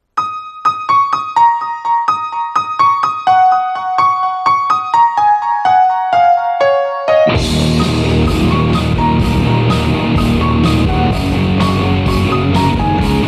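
A keyboard plays a piano-like intro of single notes stepping downward. About seven seconds in, a metal band comes in with distorted electric guitars, bass and a steady drumbeat.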